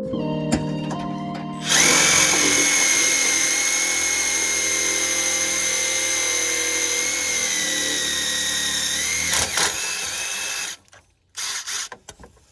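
Power drill running at a steady, high-pitched whine for about nine seconds, then stopping abruptly, followed by a few short knocks.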